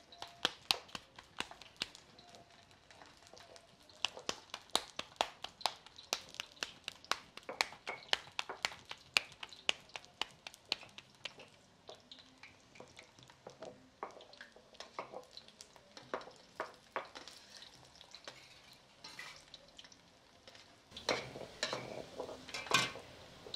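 Masa gorditas frying in hot oil, the oil crackling and popping sharply and irregularly over a faint sizzle. About three seconds before the end a metal spatula clinks and scrapes in the enamel pan as the gorditas are worked.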